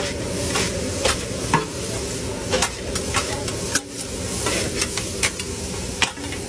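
Onions, peppers and blocks of shaved steak sizzling on a hot flat-top griddle, with metal spatulas scraping and clacking against the steel in sharp, irregular strikes as the onions are tossed.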